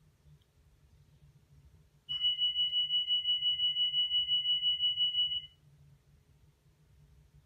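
Class 319 electric multiple unit's door warning alarm: a loud, high, rapidly pulsing electronic tone that starts abruptly about two seconds in and stops after about three and a half seconds, signalling the doors are about to move.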